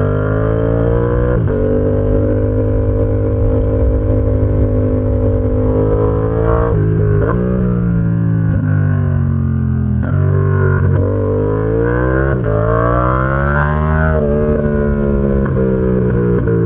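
Yamaha XSR700's parallel-twin engine through an SC Project exhaust, ridden under load. It holds a steady note for a few seconds, then rises and falls in pitch, with several brief breaks where the rider changes gear. The longest climb, near the end, stops with a sharp drop at the next shift.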